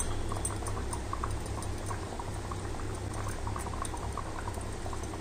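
Thick fish-curry gravy simmering in a kadai, bubbling with many small pops over a steady low rumble.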